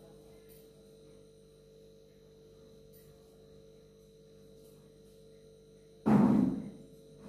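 Plastic chair set down on a concrete floor with a sudden, loud hollow thump about six seconds in, after several seconds of faint steady hum.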